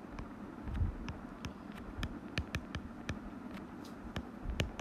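Stylus tip tapping and clicking on a tablet's glass screen while handwriting, as irregular quick clicks, with a couple of dull low knocks.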